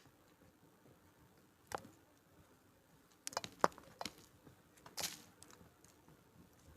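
A slab of gym chalk with a cornstarch topping being crushed: a single crisp crunch about two seconds in, a quick cluster of sharp cracks in the middle, and another crunch about five seconds in.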